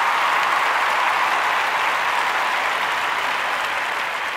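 Applause, added as an editing sound effect: a dense, steady patter of clapping that eases off slightly near the end.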